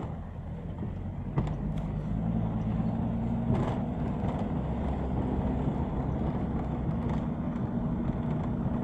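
An engine running steadily at a constant pitch, with a couple of faint knocks about one and a half seconds in.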